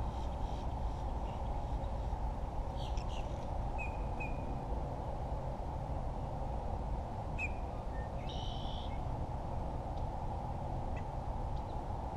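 Steady wind noise buffeting the microphone, with a few short bird calls scattered over it: single chirps about three, four and seven seconds in, and a brief burst of higher calls around eight seconds.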